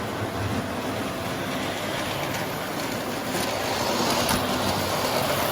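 Electric model train running on the layout's track, giving a steady running noise of wheels on rails.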